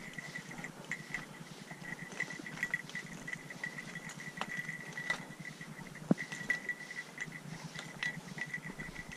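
An insect's steady high trill, rapidly pulsing and breaking off briefly a few times, with scattered light clicks and one sharper click about six seconds in.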